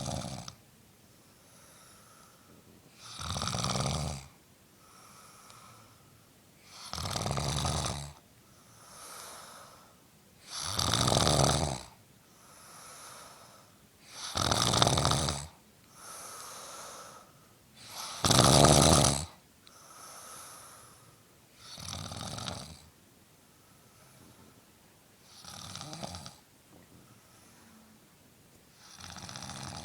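A sleeping man snoring, with a strong rasping snore every three and a half to four seconds and a fainter breath sound between each. The snores are loudest about two thirds of the way in and grow weaker near the end.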